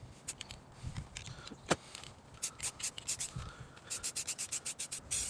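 Aerosol spray paint can being shaken, its mixing ball rattling in quick sharp clicks, with a dense run of rattles about four seconds in.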